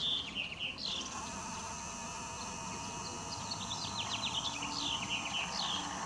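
Small birds chirping in series of quick falling chirps, over a steady high-pitched buzz that starts about a second in.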